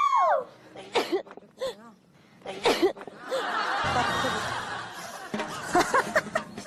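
People laughing and chuckling in short bursts, with a longer stretch of laughter in the middle.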